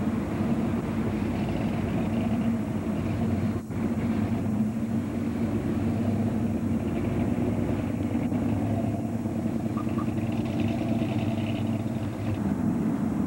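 Hot rod engines rumbling steadily as the street rods cruise slowly past at low speed, with a brief dip in the sound about three and a half seconds in.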